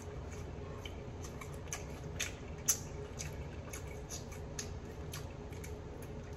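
Scattered small wet clicks and smacks of eating chicken wings by hand, fingers tearing meat off the bone, over a low steady hum.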